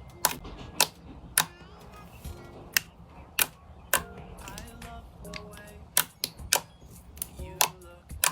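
Crunchy slime being pressed and squeezed by hand, giving sharp crackling pops about once or twice a second, over background music.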